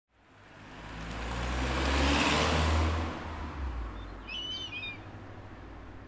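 A car driving past: engine rumble and road noise swell over the first two to three seconds, then fade away. A bird chirps a few times about four seconds in.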